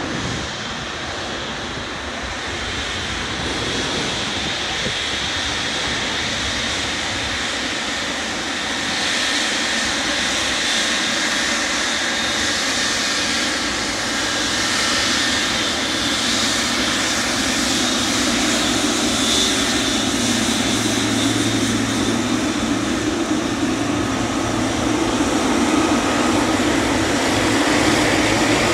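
A Boeing 777-200LR's GE90 turbofan engines running as the airliner rolls slowly past, a steady jet whine and rumble that grows gradually louder.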